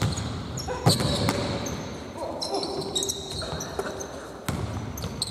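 A basketball bouncing on an indoor court, with a sharp thud about a second in and another near the end, amid short high squeaks of sneakers on the floor.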